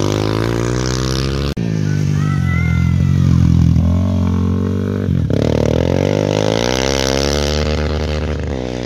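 Motorcycle engines revving hard as dirt bikes accelerate, in three short cuts. In the last cut the engine climbs steadily in pitch as the bike pulls away.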